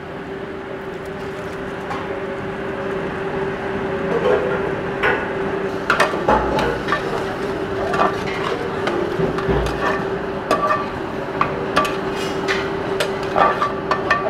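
Long steel ladle stirring and scraping through thick onion-and-tomato masala in a large metal pot, knocking irregularly against the pot's rim and sides, over a steady hum.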